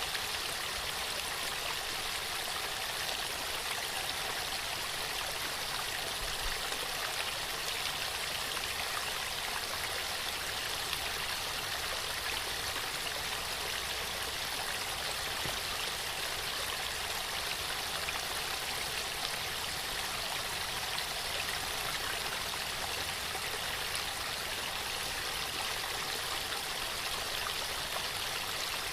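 Waterfall: water pouring and splashing with a steady, even rush.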